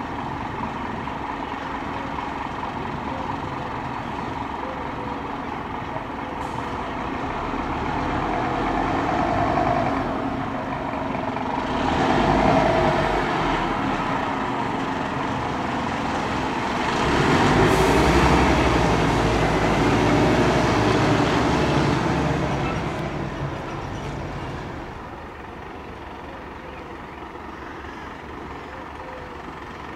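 Scania P280 fire engine's diesel engine running and moving off, swelling louder as it pulls away about 12 seconds in and again from about 17 to 22 seconds, then settling to a quieter run.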